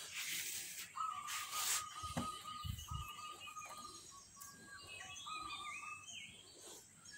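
Birds calling: one note held at a steady pitch in several stretches over a few seconds, with shorter, higher chirps above it.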